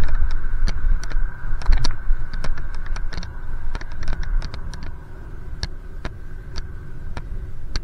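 Bicycle riding: steady wind and road rumble with many irregular sharp clicks and rattles, a few to several a second.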